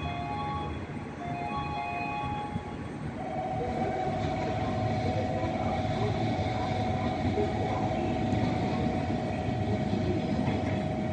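Railway station sounds: a short chime melody of a few notes, then from about three seconds in a steady buzzing signal tone over a low rumble of train noise that grows slightly louder.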